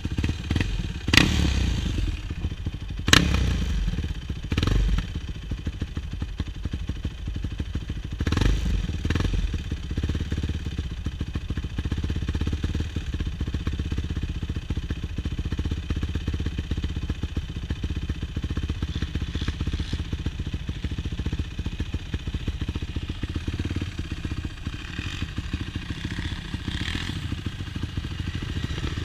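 Yamaha YFZ450 quad's single-cylinder four-stroke engine running steadily while riding. A few sharp knocks and clatters come in the first ten seconds.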